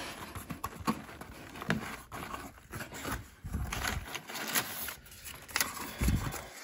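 Cardboard shipping box being opened by hand: the flaps scrape and rustle in irregular bursts, with a couple of dull bumps.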